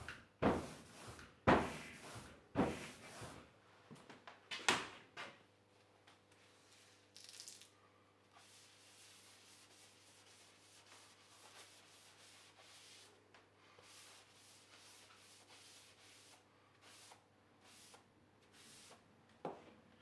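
A few sharp knocks and rustles of handling in the first five seconds, then faint intermittent rubbing as a damp sponge is wiped over a lithographic stone, over a steady low hum. Another sharp knock comes near the end.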